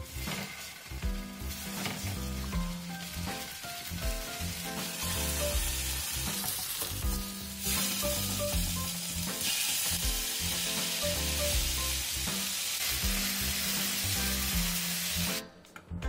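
Tofu slices sizzling as they pan-fry in olive oil over low heat in a nonstick pan. The sizzle cuts off abruptly near the end.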